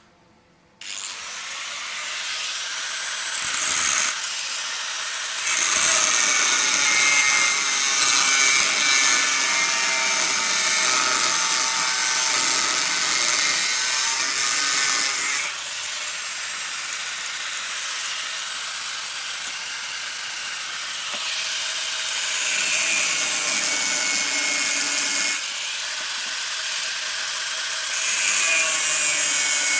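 A power tool cutting or grinding the steel of an old leaf spring: a continuous hiss with a faint wavering whine, changing in level several times as the tool bears in and eases off.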